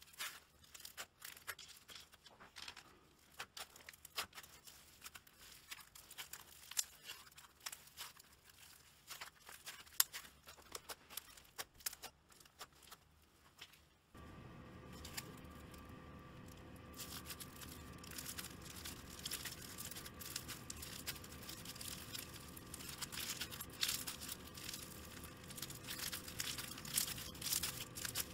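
Foam-bead slime being squeezed and stretched by hand, a quick, irregular run of small crackles and pops from the beads. About halfway through, a steady hum with a faint steady tone comes in under the crackling.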